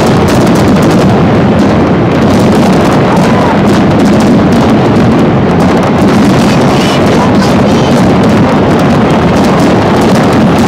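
Fireworks display at full intensity: a rapid, unbroken barrage of aerial shell bursts and crackling, very loud.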